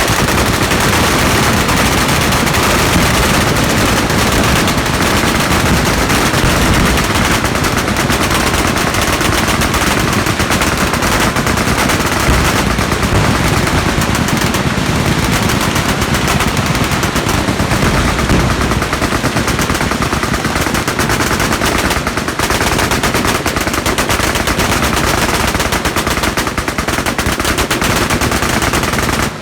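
Many machine guns firing at once along a firing line: a dense, unbroken barrage of automatic fire that starts suddenly and keeps going.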